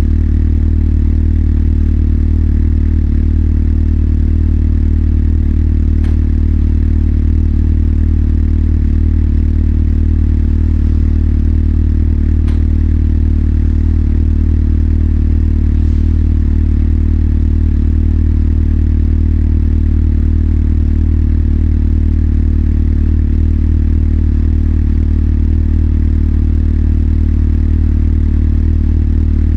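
Motorcycle engine idling steadily, its pitch holding flat throughout, with a few faint clicks.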